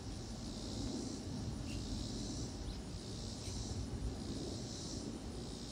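Insects calling in a chorus, a high buzz that swells and fades about once a second, over a steady low rumble.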